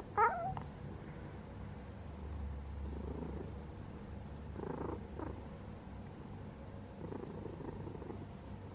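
Domestic cat purring steadily, with one short, loud meow that bends in pitch just after the start.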